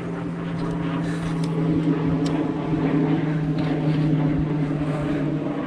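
A distant engine drones steadily at one pitch, swelling a little and then easing off as it passes.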